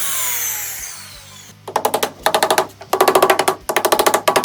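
A power saw cutting PVC glazing beads to length, its blade spinning down with a falling whine over the first second or so. After a short pause comes a fast, pitched rattle in several short bursts.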